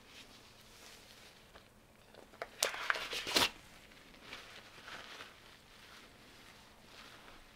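Thin nitrile gloves rustling and crinkling as they are handled and crumpled up in the hands. About two and a half seconds in comes a louder second of sharp crackles, then softer rustling.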